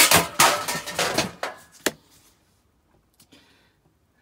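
Clatter and several sharp knocks as a Henry vacuum cleaner's hose and metal wand are handled, for about two seconds, then only a few faint clicks. The vacuum's motor is not running.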